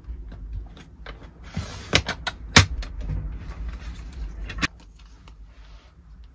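Objects being handled on a work surface: a run of small clicks and taps, a brief rustle, and three sharp knocks about two, two and a half and four and a half seconds in.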